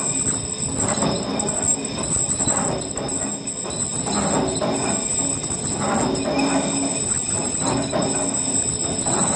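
Lathe cutting tool truing the uneven hoist drum of a cable excavator as the drum is spun under it: a steady metallic scraping with a constant high whine. The noise swells regularly, about every second and a half to two seconds.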